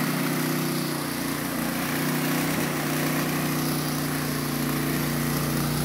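Small engine-driven portable water pump running steadily at a constant speed, pumping water through its hoses.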